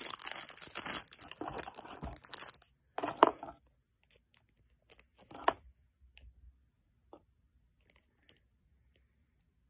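Plastic packaging crinkling and tearing as the energy cards from a Pokémon Elite Trainer Box are unwrapped, for about two and a half seconds, followed by two short rustles and a few light taps of cards and cardboard being handled.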